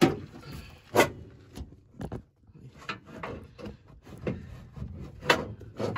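Socket wrench and extension knocking and scraping against a truck's underside as a stuck bolt is worked on: a run of sharp knocks, the loudest right at the start and about a second in, with rubbing and scraping between.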